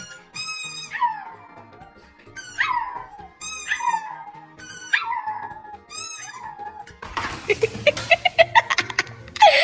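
Pug howling in short cries that fall in pitch, about five of them roughly a second apart, each just after a high-pitched squeak. About seven seconds in, a rapid clatter of clicks takes over.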